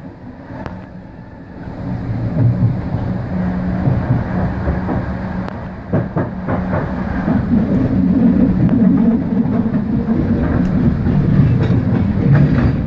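Passenger train running on the rails with a steady low rumble and wheel clatter, growing louder about two seconds in, with a few sharp clicks near the middle.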